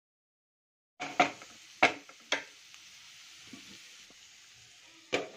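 Chopped beetroot frying with a light sizzle in a nonstick pan. Starting about a second in, a spatula knocks against the pan three times. Near the end a glass lid clinks onto the pan.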